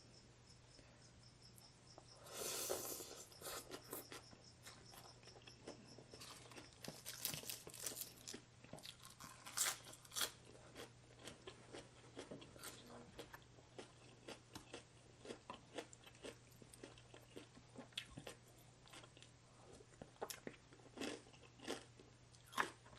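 A person chewing crunchy food close to the microphone: many short, crisp crunches through the stretch, with a longer, louder burst of noise about two seconds in.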